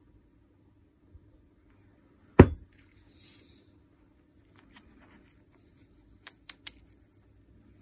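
Small metal parts of a rotary hammer's barrel mechanism being taken out and set down on a workbench. There is one loud knock, then three light, quick clicks near the end.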